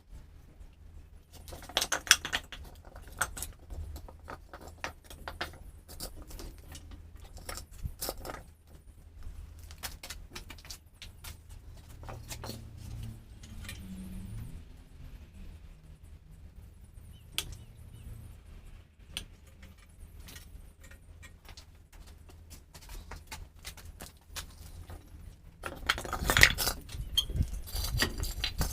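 Metal tools and parts clinking and knocking in irregular clicks, growing into a louder clatter near the end, over a low steady hum.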